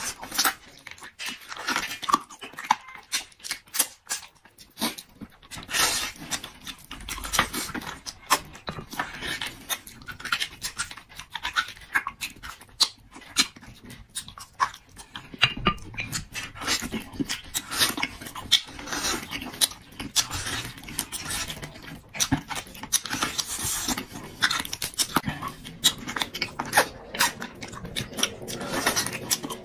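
A person eating close to the microphone: a steady, irregular run of chewing, smacking and crunching noises.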